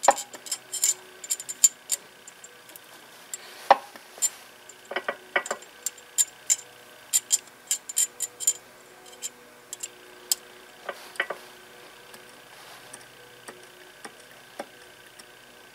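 Metal tools and engine parts being handled on a workbench: an irregular string of sharp clicks and clinks, dense at first and thinning out after about eleven seconds.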